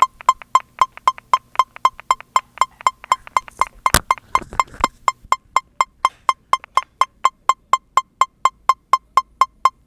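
Metronome beeping fast, about four short high-pitched beeps a second, speeding up. There is one sharper, louder click about four seconds in.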